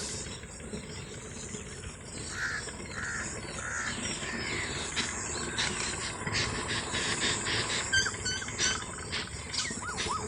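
Birds calling in an open field: three harsh calls in a row a little over two seconds in, then many quick, short chirps through the second half.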